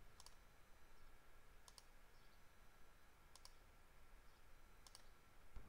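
Four faint computer mouse clicks, each a short double tick, spaced about a second and a half apart over near silence.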